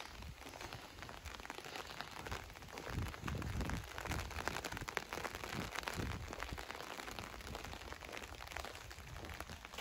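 Rain falling and pattering, a steady crackly hiss of many small drop ticks, with irregular low thumps and rumbles from time to time.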